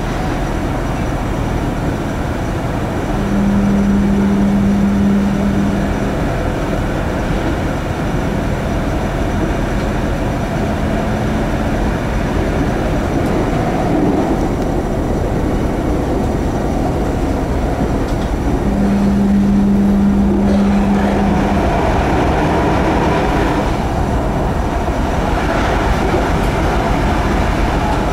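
Light metro car running on elevated track, heard from the front of the car: a steady rumble of wheels on rail, with a steady low hum that comes on twice for about three seconds each time.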